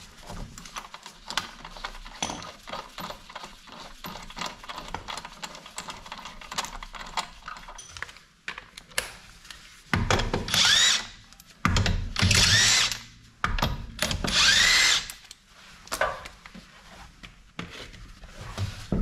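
Light clicks and knocks of hand tools, then three short bursts of a power impact wrench, its motor whining and changing pitch, as it spins out the wheel bolts.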